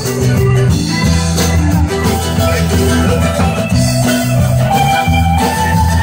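Live band playing an instrumental break with no singing: strummed acoustic guitar and electric guitar over a drum kit keeping a steady beat.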